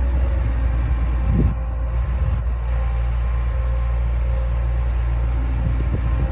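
Heavy diesel construction machinery running steadily with a deep low rumble, with a brief swell about a second and a half in.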